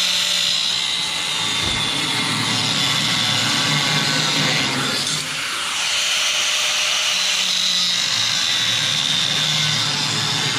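A power tool running steadily in the shop with a high whine over a low rumble, easing off briefly about halfway through.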